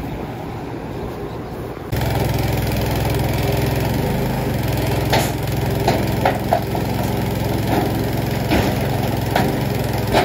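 Small petrol engine on the hoof-trimming crate's trailer running steadily while the crate is swung upright. It starts suddenly about two seconds in, with a few sharp knocks from the crate's metal frame over it.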